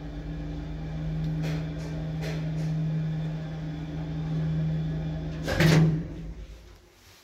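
1960s Gendre Otis single-speed lift running with a steady electric hum as the car travels, with a couple of faint clicks along the way. About five and a half seconds in it stops with a short loud clunk, and the hum dies away.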